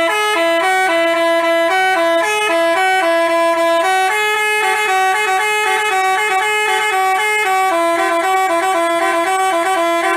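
Basuri telolet musical bus horn playing a tune: a loud run of short, stepped horn notes in two parts, one above the other, sounding without a break.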